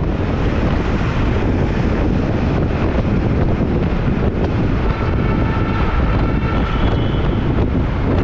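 Steady rumble of a vehicle on the move, with wind buffeting the microphone. A faint high tone sits over it for about two seconds past the middle.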